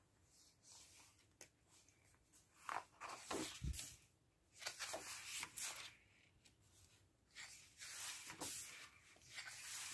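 Sheets of a pad of patterned craft paper being turned by hand: soft, irregular paper rustles and swishes, with one dull low knock a little under four seconds in.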